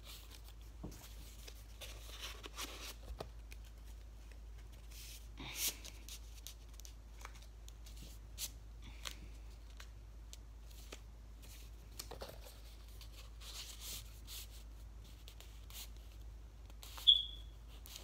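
Rolled paper tubes being handled: faint paper rustling and crinkling with scattered light taps and scuffs. Near the end there is one short, sharp high squeak, the loudest sound in the stretch.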